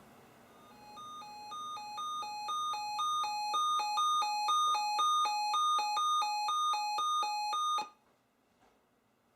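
A weather radio's alert alarm sounding for an incoming tornado watch: two beep tones alternate quickly, growing louder over the first few seconds, then cut off abruptly after about seven seconds.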